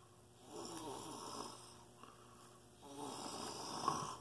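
A man's heavy, congested breathing through a nose blocked by a severe head cold: two long, snore-like breaths, each about a second, the second a little louder.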